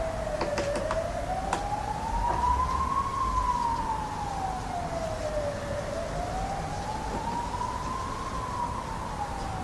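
An emergency-vehicle siren in a slow wail, its pitch rising and falling about every five seconds. A few sharp taps come in the first second or so.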